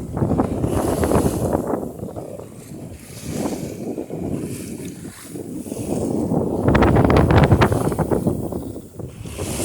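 Wind buffeting the microphone and water rushing along the hull of a big Banks dory sailing upwind through chop. The noise swells and eases in gusts and is loudest about seven seconds in.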